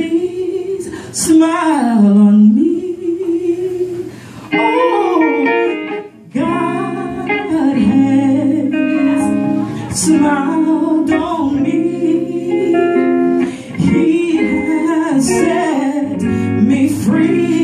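Live gospel song: a woman sings a long sliding phrase that dips in pitch and rises again early on. Hollow-body electric guitar chords then carry on under her voice.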